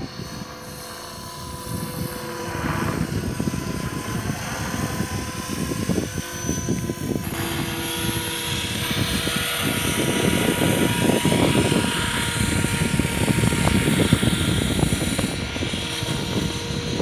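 Align T-Rex 500 electric RC helicopter running with a steady motor and rotor whine while it sits on the ground, mixed with a loud, uneven rushing noise.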